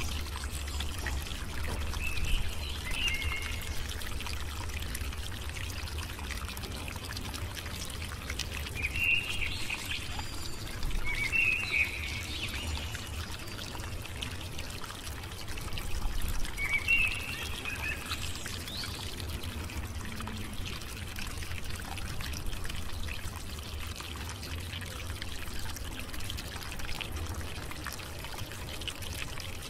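Steady background hiss over a low hum, with a few short clusters of high chirps three times.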